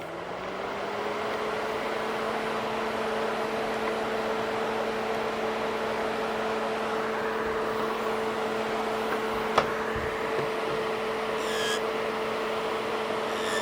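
Electric nail drill spinning up and then running at a steady speed with an even, pitched whine. There is a single sharp click about two-thirds of the way through.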